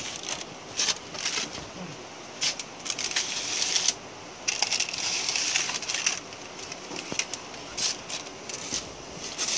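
Pizza peel scraping and sliding across the brick floor of a wood-fired oven as a pizza is turned, in two longer scrapes, over the crackle of the wood fire burning beside it.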